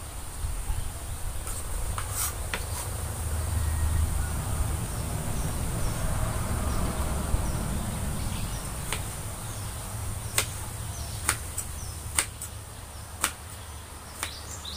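Kitchen knife slicing through eggplant and knocking on a wooden cutting board: short sharp knocks now and then, coming about once a second in the latter half. Behind them, a steady high insect drone and a low steady rumble.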